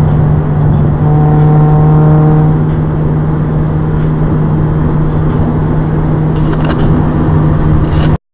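Nissan Almera GTi's four-cylinder engine and new aftermarket exhaust at steady motorway cruise, a loud, constant low drone that swells slightly between about one and two and a half seconds in. The sound stops abruptly near the end.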